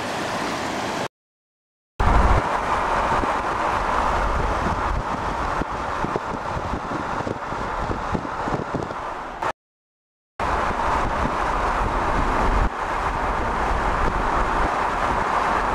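A car driving, with steady road and wind noise heard from inside the car. It is broken twice by about a second of dead silence: once about a second in, and again about ten seconds in.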